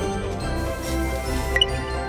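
Background music with held notes, and a brief high ding about a second and a half in.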